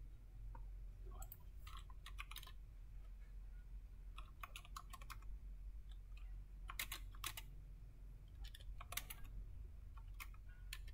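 Computer keyboard typing: several short bursts of keystrokes over a steady low hum.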